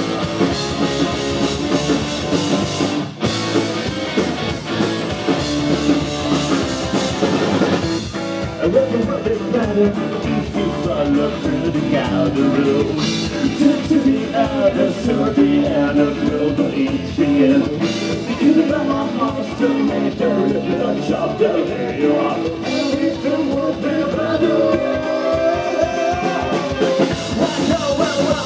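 Live rock band playing loudly: electric guitar, bass guitar and drum kit, with a male lead vocal sung over them.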